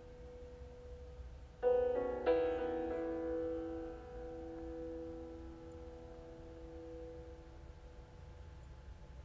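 Background piano music: held notes, then two chords struck about a second and a half and two seconds in that ring out and slowly fade.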